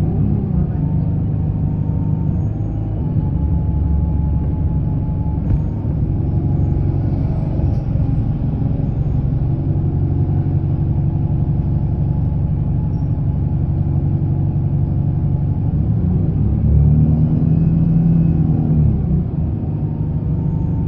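Alexander Dennis Enviro 200 single-deck bus with a Voith automatic gearbox running with a steady low rumble. Near the end the engine note rises and grows louder for a few seconds, then drops back.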